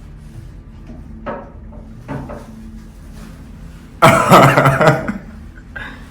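A man's sudden, loud vocal outburst, a cry lasting about a second, about four seconds in, typical of a patient's reaction to a chiropractic adjustment. Two shorter, fainter sounds come before it.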